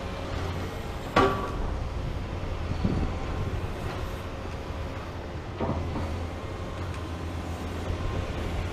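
Komatsu PC490 long-front demolition excavator running steadily, with a low diesel hum, as its long arm moves. A sharp metallic clang with a short ring about a second in, then two fainter knocks.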